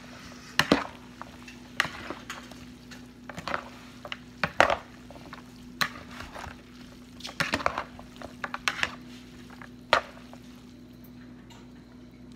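Chopsticks and a metal spoon tossing a salad in a plastic bowl: irregular clicks and knocks of the utensils against the bowl, which thin out about ten seconds in. A steady low hum runs underneath.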